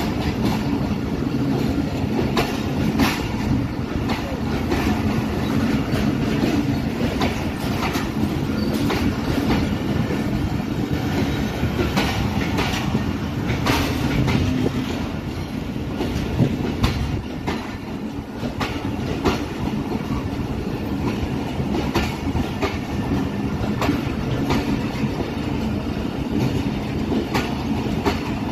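Pakistan Railways passenger coaches rolling past close by, a steady rumble of wheels on track with irregular clicks and clatter as the wheels cross rail joints.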